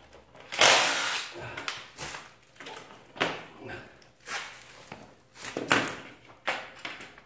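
Cordless DeWalt impact driver running in short bursts as it backs out the bolts holding the cooling-fan shroud to the old radiator, among knocks and clatters of the plastic fan shroud being handled and lifted off.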